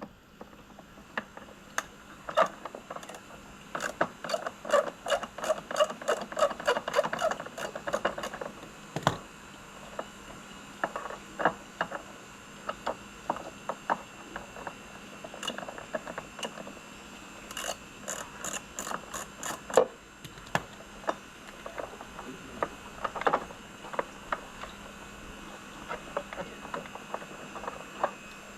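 Ratcheting hand tool clicking in quick runs while screws are worked out of the pool cleaner, with scattered clicks and knocks from handling the parts.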